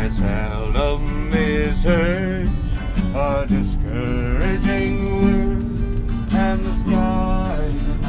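Acoustic guitar played in a country tune, with a voice singing along in held notes with a wavering pitch.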